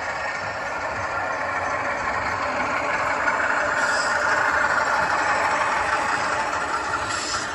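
Steady diesel engine sound from a sound-equipped HO-scale CSX model locomotive, played through its small onboard speaker as the locomotives pass.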